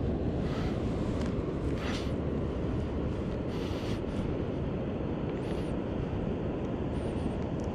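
Wind buffeting the microphone, a steady low rumble, with a few brief faint scratchy sounds over it.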